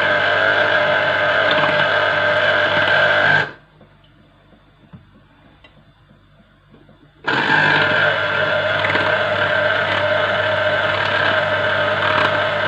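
Electric citrus juicer motor running with a steady hum, squeezing lemons. It stops about three and a half seconds in and starts again nearly four seconds later.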